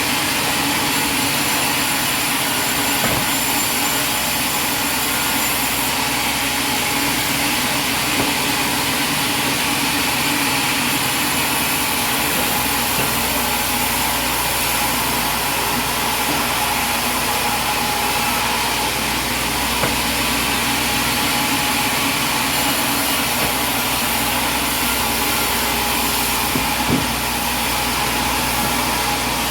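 Sawmill machinery running steadily, an even mechanical din with a couple of faint knocks.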